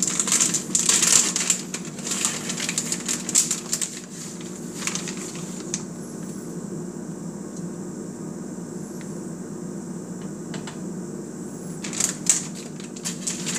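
Plastic bag of shredded cheese crinkling as it is handled, in quick bursts over the first few seconds and again near the end, quieter between. A steady low hum runs underneath.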